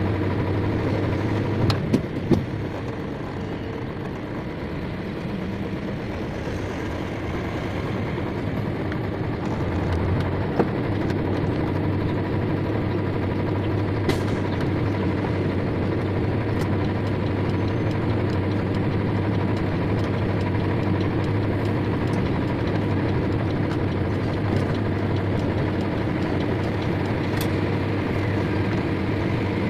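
Truck engine running steadily while the truck is driven, heard from inside the cab, on a test drive of a newly rebuilt clutch master cylinder. A few short knocks or clicks cut through, the loudest about two seconds in.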